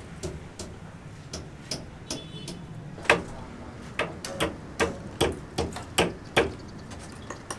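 Hammer blows: a few light taps, then from about three seconds in a steady run of sharp strikes, about two and a half a second.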